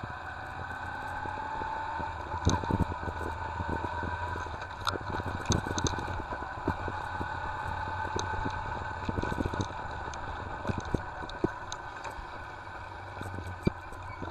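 1991 Yamaha XV250 Virago's small V-twin engine running under way, its note rising twice. Scattered sharp knocks and clatters, the loudest sounds here, come in over the running.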